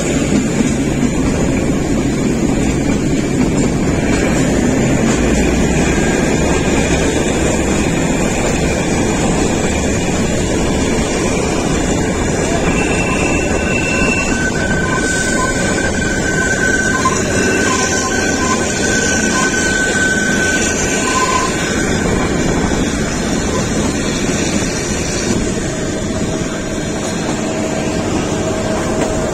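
Kalka–Shimla narrow-gauge toy train running, a steady continuous noise from the moving train, with a thin high whine that comes and goes for several seconds around the middle.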